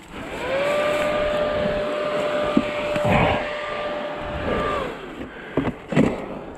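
KTM 300 XC-W two-stroke dirt bike engine revving up and held at steady revs for about four seconds, then dropping back, with a knock about three seconds in.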